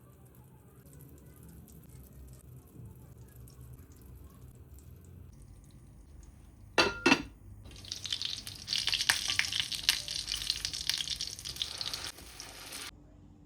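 Two quick metallic clinks about seven seconds in, then hot oil sizzling and crackling under cottage-cheese patties (syrniki) frying in a pan for about five seconds, stopping suddenly.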